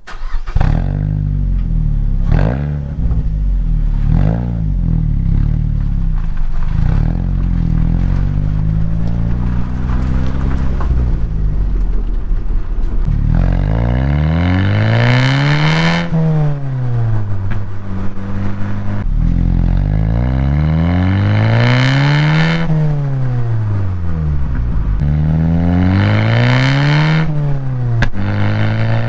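A vehicle's engine and exhaust running, uneven at first with a few sharp clicks, then rising in pitch and falling back three times as it is revved or accelerated and let off.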